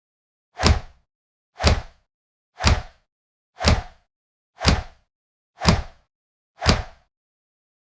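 A hit sound effect repeated seven times, about once a second. Each is a sharp crack with a low thud beneath it that dies away quickly.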